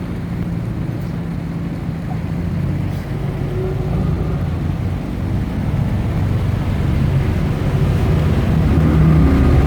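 A boat's engine running with a steady low hum, growing gradually louder over the second half.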